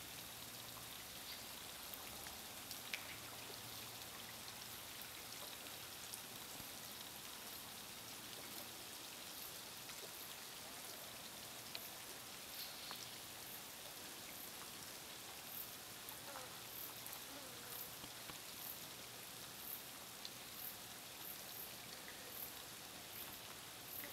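Rainwater dripping and trickling off a rock face into a waterhole after overnight rain: a faint, even patter with scattered louder drips.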